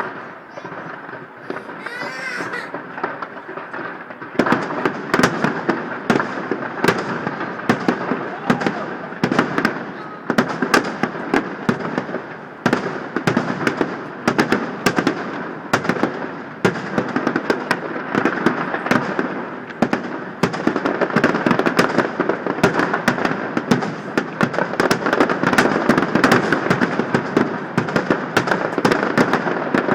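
Fireworks finale: a display firing densely. After a quieter first few seconds, bangs and crackling come in rapid succession, many each second, from about four seconds in.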